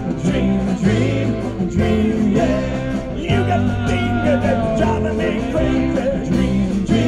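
Live rock band playing an instrumental passage between sung lines: bass, drums and a lead guitar line with bending notes.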